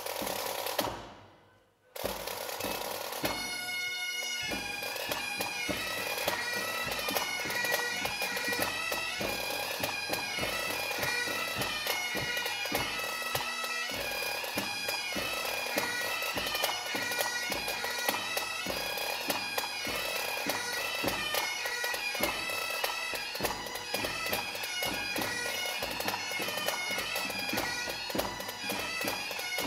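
Highland pipe band striking up: after a loud opening beat, the bagpipes come in with their steady drones and then play a tune over rapid snare-drum rhythm and bass drum.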